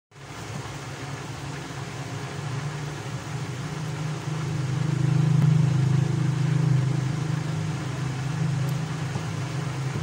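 A low, steady droning hum that swells louder about halfway through and eases off again.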